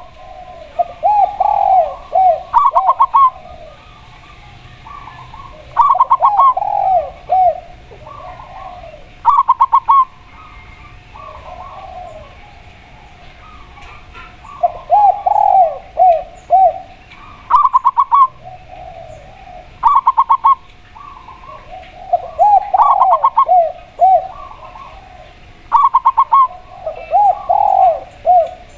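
A spotted dove and a zebra dove cooing in turn. Short, fast pulsing phrases come every couple of seconds, alternating with runs of lower, bending coo notes.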